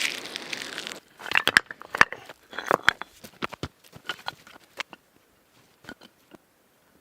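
Rustling that cuts off abruptly about a second in, then a run of sharp clicks and cracks, dense at first and thinning out.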